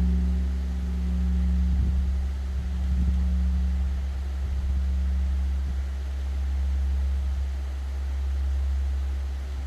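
A large bronze Korean temple bell (beomjong) ringing on after a strike. Its deep hum slowly swells and fades every couple of seconds, the long pulsing resonance typical of these bells.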